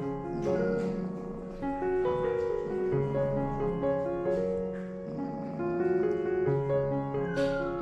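Background piano music: a gentle melody of held notes changing about every half second.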